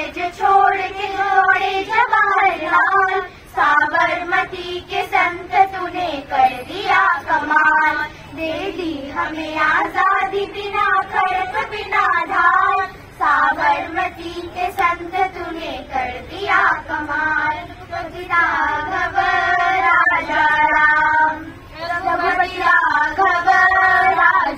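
A group of schoolchildren, mostly girls, singing together in unison. Long held sung phrases are separated by brief pauses for breath.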